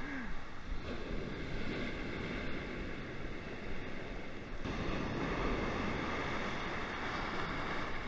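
Surf washing up the shore, a steady rush of breaking foam, which gets a little louder about four and a half seconds in.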